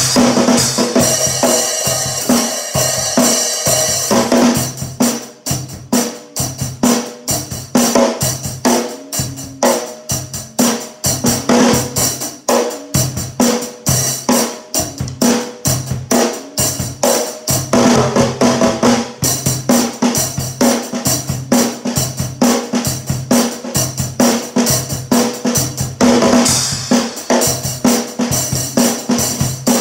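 Acoustic drum kit played in a steady groove: bass drum and snare hits under cymbals. Crashing cymbals wash over the beat for the first few seconds, the groove tightens into clear, evenly spaced strokes, and the cymbal wash swells again near the end.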